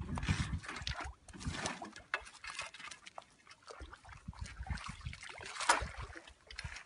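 Shallow water sloshing and trickling as a hand dip net is worked through it, with irregular small splashes and one louder splash about two-thirds of the way in.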